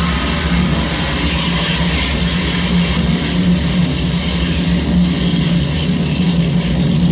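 Live electronic noise music from a tabletop rig of mixer and effects units: a loud, steady wall of hiss over a constant low hum, with little change in level.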